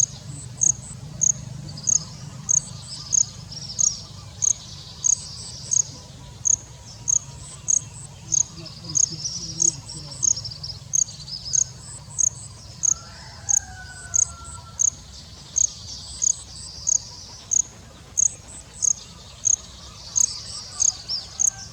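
A cricket chirping, a sharp high note repeating very regularly a little over once a second, with birds chattering softly at times behind it.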